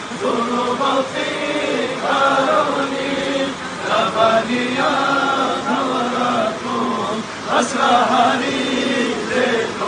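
Men's voices chanting a melodic Arabic supplication to the Prophet, long drawn-out sung phrases rising and falling in pitch.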